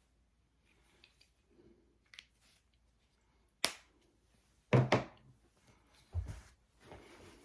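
Tools handled on a bench: mostly quiet, then a sharp click a little past halfway, followed by a few knocks as things are set down.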